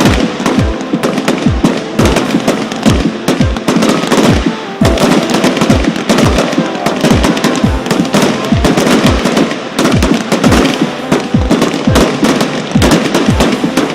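Fireworks going off in quick succession, with dense crackling and bangs, over music with a steady thumping beat of about two beats a second.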